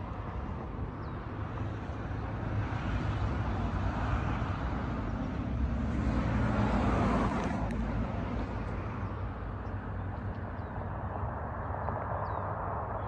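Outdoor ambience of road traffic: a steady low rumble that swells as a vehicle passes about six to seven seconds in, then eases off.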